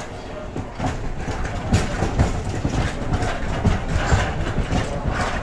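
Hiroden (Hiroshima Electric Railway) articulated streetcar rolling past close by, its wheels clattering over the rail joints and points in irregular knocks, growing louder over the first second as it comes near.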